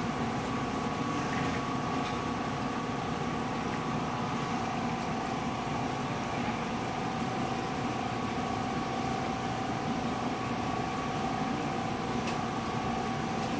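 Steady fan-like hum of laboratory air handling or equipment, with two steady tones running through it, and a faint click near the end.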